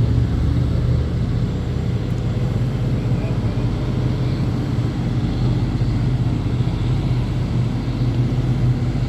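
Heavy open-pit mining machinery running, a steady low engine drone that holds even throughout.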